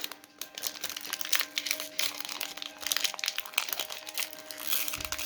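Foil wrapper of a Pokémon trading card booster pack crinkling and crackling in quick irregular bursts as it is gripped and pulled open by hand.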